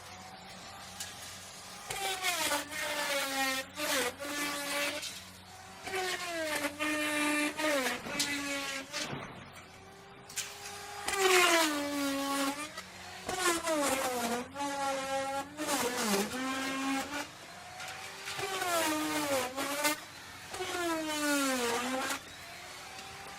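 Electric wood router cutting in a series of short passes. The motor's pitch drops as the bit takes load in the wood and rises again as it comes free, with quieter spells between passes.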